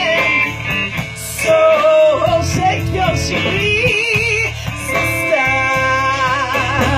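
Live band playing a blues-rock song: electric guitar, bass guitar and drums, with long wavering held notes over a steady low drum and bass bed.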